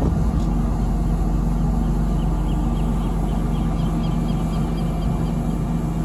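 Steady drone of a harbour ferry's engine heard from the open deck, with wind and water noise. A faint run of quick high chirps, about four a second, comes through in the middle.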